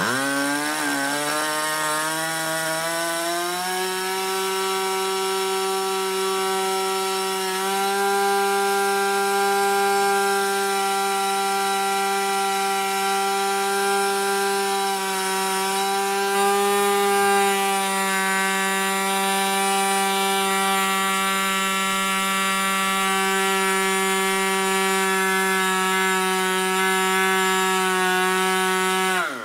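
Moki 61 LS two-stroke glow engine with a ringed, Schnuerle-ported piston, driving a propeller. It catches right away and climbs in pitch over the first few seconds, then runs steadily at high speed. Just before the end it slows sharply.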